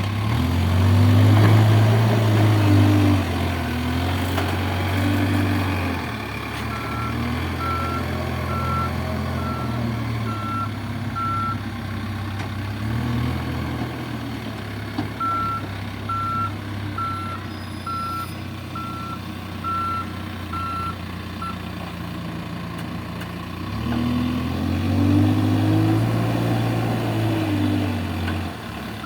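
JCB backhoe loader's diesel engine working, revving up under load near the start and again near the end. Its reversing alarm beeps about twice a second for two stretches in the middle.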